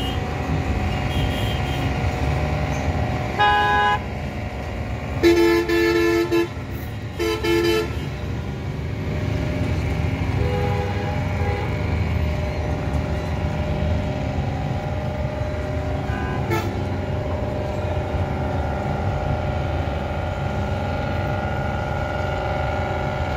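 Vehicle horns honking: a short toot, then a longer blast, then a shorter one in quick succession, over a steady low rumble of engines. A faint further tone follows a few seconds later.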